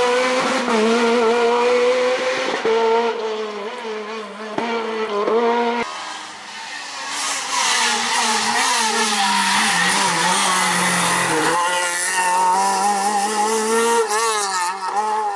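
Renault Clio R3 rally car engine revving hard under acceleration, its pitch rising and falling with sudden drops at the gear changes, in several short cuts. Tyre and road noise hisses through the middle.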